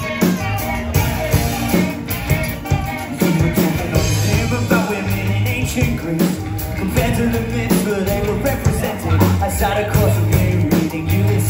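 Live indie rock band playing, with electric guitars and drums driving a steady beat.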